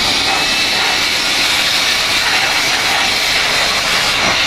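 Bosch GBL18V-120 18 V cordless blower running with a loud, steady rush of air and a faint motor whine as it blows dust off a welding machine.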